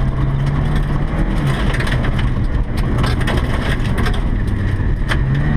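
Volvo 240 rally car's engine pulling hard, heard from inside the cabin, its note sagging a little about four seconds in and climbing again near the end. A few sharp clicks or knocks from the car, the clearest about five seconds in.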